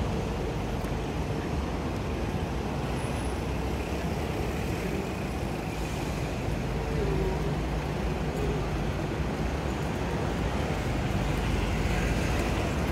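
Steady city-road traffic noise of buses and cars running past, with a low engine hum underneath.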